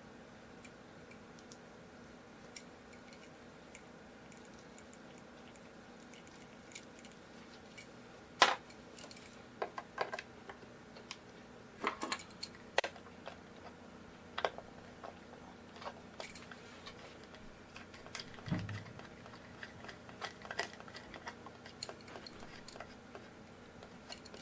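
Scattered small clicks and metallic taps of hand tools and loose hardware being handled while an electric guitar is taken apart. They begin about a third of the way in, the first being the loudest, with a short low knock later, over a faint steady hum.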